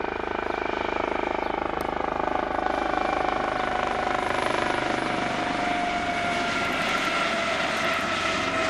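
Eurocopter AS365 Dauphin helicopter flying close by: rapid rotor-blade chop over a steady whine from its turbines and Fenestron tail fan, the whine sliding slowly lower in pitch.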